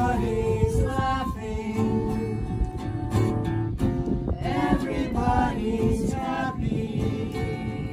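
An acoustic guitar strummed steadily while a small group sings along.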